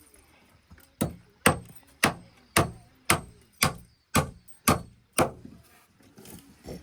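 Hammering: about nine even, sharp blows, roughly two a second, that stop about three-quarters of the way through.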